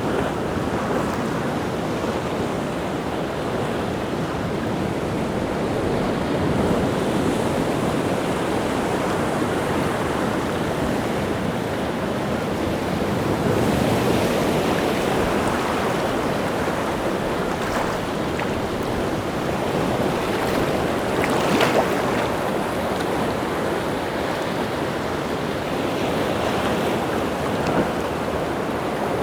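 Rough sea surf breaking continuously on the shore, the wash swelling louder every several seconds as bigger waves crash in. The sharpest crash comes about two-thirds of the way through.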